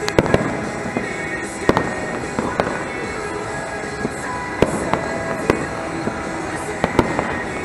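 New Year's Eve fireworks and firecrackers going off: about a dozen sharp bangs at irregular intervals over a steady background noise.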